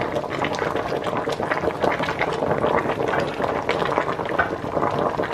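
Broth of a watercress boil-up boiling hard in a large uncovered pot, a steady dense bubbling and popping.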